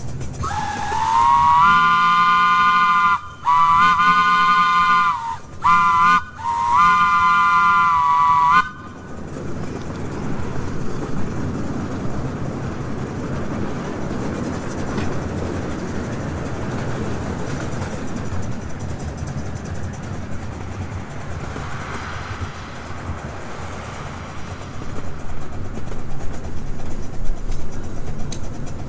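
A multi-note steam chime whistle blows four blasts, long, long, short, long: the standard grade-crossing signal. After that comes the steady rumble of the miniature train running along its track.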